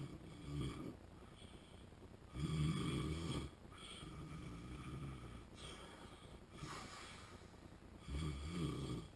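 A man snoring in his sleep, the snoring of sleep apnea. There are three loud snores, one at the start, the loudest about two and a half seconds in and another near the end, with softer breathing between them.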